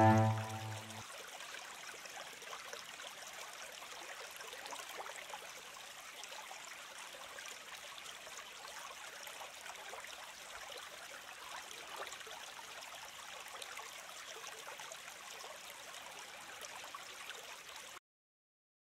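Background music dies away in the first second, leaving a faint, even hiss with no tune or voice. The hiss cuts off suddenly about a second before the end.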